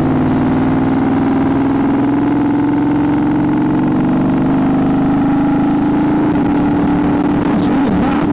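Moto Guzzi V35's air-cooled V-twin engine running steadily under load, its pitch rising slowly as the bike picks up speed.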